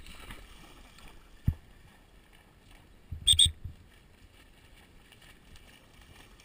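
Yellow Labrador retriever splashing through shallow water on a retrieve. There is one sharp knock about a second and a half in, and a louder double crack a little past three seconds.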